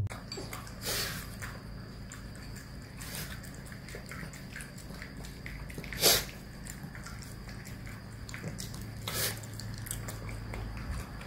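Two small dogs, a Pekingese and a Shih Tzu, eating from bowls side by side: irregular crunching and chewing clicks, with a louder crunch about six seconds in.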